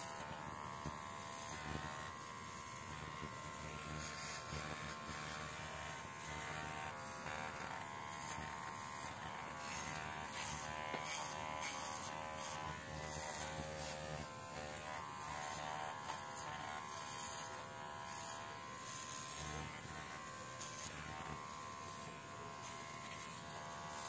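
Baorun P2 electric pet clipper running with a steady, quiet buzz as it shaves a Yorkshire terrier's coat.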